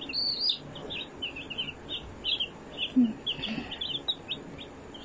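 Baby chick peeping over and over, short high peeps at about four a second.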